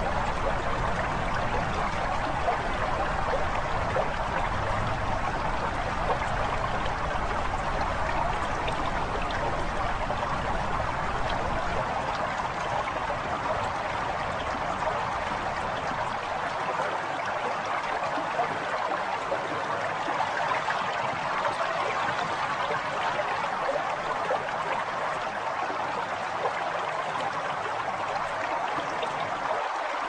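Recorded calm water sound: a steady wash of running, trickling water, with the low rumble beneath it thinning out about halfway through.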